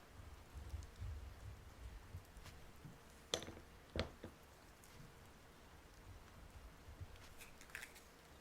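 Quiet handling of small calligraphy things on a desk: soft low bumps, then two sharp clicks about three and four seconds in, and faint light scratching near the end.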